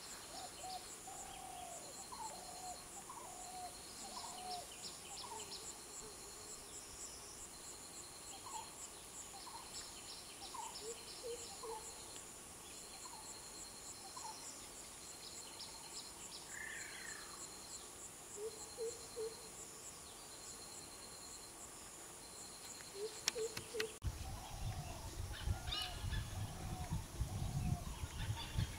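Wild birds calling over a steady high insect chirring, with a short trill repeating every second or two. About 24 seconds in, a louder low noise joins in.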